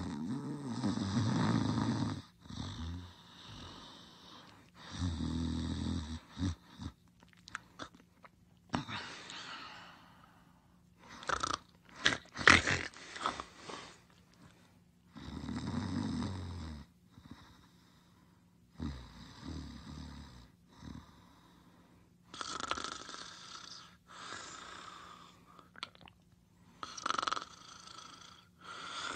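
Snoring, over and over: low, rumbling snores alternating with hissing, wheezy exhales, the loudest exhale about halfway through. A faint steady hum sits underneath.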